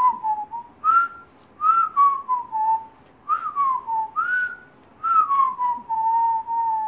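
A man whistling a tune in short phrases that slide down in pitch, the last one drawn out into a long held note.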